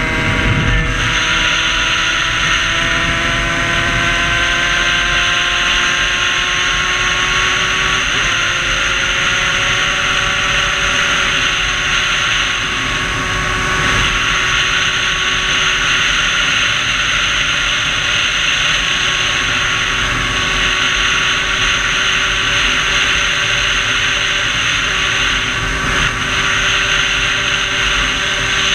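Two-stroke engine of a Sherco 50 moped tuned with a 75 cc MVT big-bore kit and MVT expansion pipe, ridden hard at speed. The engine note climbs slowly, drops about eight seconds in and climbs again, over a heavy rush of wind on the microphone.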